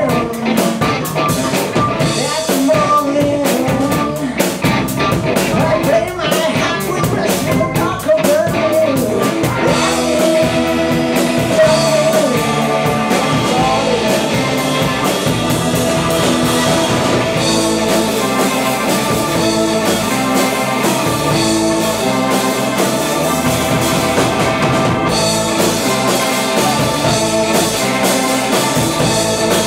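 Live blues-rock band playing: electric guitars and drum kit, with a singer's voice through the first part.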